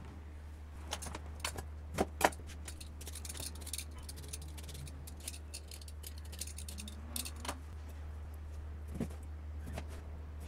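A vegetable peeler scraping the skin off an eggplant in a run of quick strokes, with scattered knocks on a plastic cutting board. Near the end a knife cuts into the peeled eggplant. A steady low hum runs underneath.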